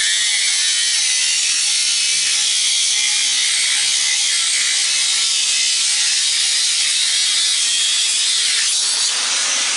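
Angle grinder with a cutting disc grinding through a transformer's copper winding, a steady, loud, high grinding noise.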